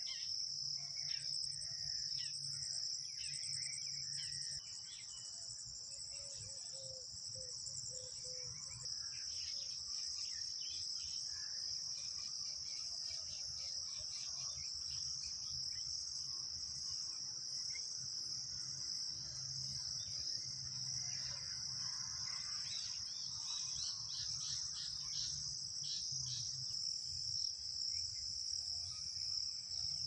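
Insects keeping up a steady, high-pitched chorus without a break, with scattered short ticks beneath it.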